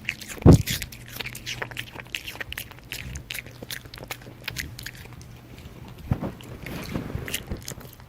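Pomeranian puppy biting and chewing crisp Korean pear: a quick run of wet, sharp crunches, with one heavier thump about half a second in.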